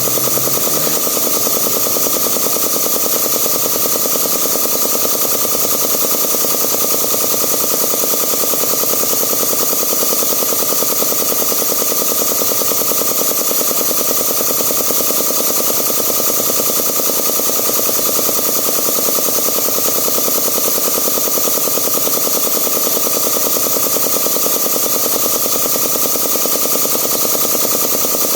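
Zacchi piston air compressor running steadily, a fast even clatter from the pump as it builds up tank pressure.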